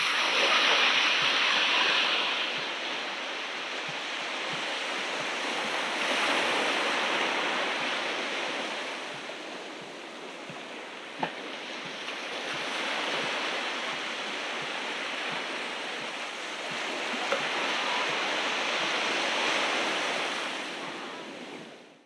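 Ocean waves surging and washing onto the beach, swelling and ebbing every several seconds. There is a brief click about eleven seconds in, and the sound fades out at the end.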